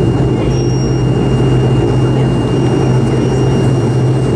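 Turboprop airliner's engine and propeller droning steadily at taxi power, heard from inside the cabin, with a thin steady high-pitched whine over the low drone.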